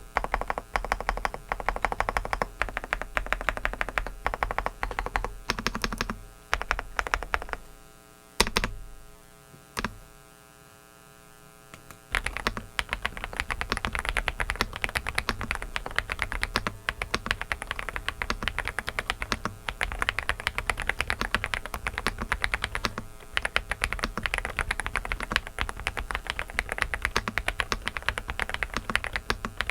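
Typing on a Dareu mechanical keyboard: a fast run of key clacks that slows and stops about a third of the way in, with a couple of single loud keystrokes, then a few seconds' pause before fast typing resumes.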